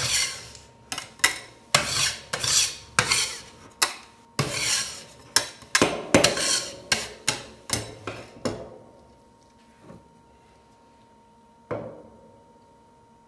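Metal spatulas scraping in quick, repeated strokes across the steel cold plate of a rolled-ice-cream machine, clearing off frozen leftovers. The scraping stops about two-thirds of the way through, leaving a faint steady hum and a single knock near the end.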